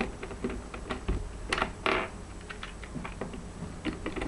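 Plastic Rubik's Cube pieces clicking as a loose edge piece is slid and snapped into the partly reassembled cube: a run of small irregular clicks, with a short louder scrape about two seconds in.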